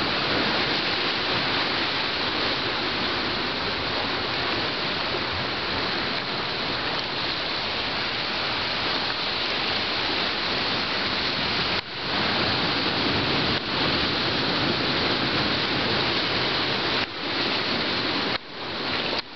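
Steady rushing noise of surf breaking on a beach, briefly cutting out four times in the second half.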